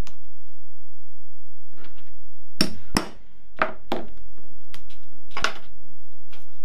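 Claw hammer striking a leather punch to punch holes through a small piece of leather on a cutting mat. A series of sharp knocks, mostly bunched between about two and a half and five and a half seconds in.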